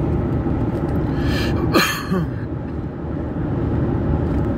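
Steady road and engine noise inside a moving car's cabin, with a short breathy noise with a falling pitch about two seconds in.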